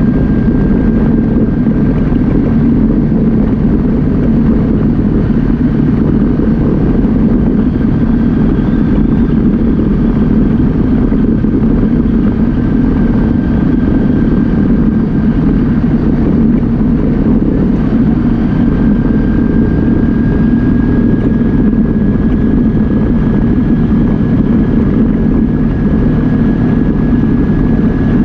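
Yamaha Viking side-by-side's single-cylinder engine running steadily under way, a low drone with a thin steady whine above it.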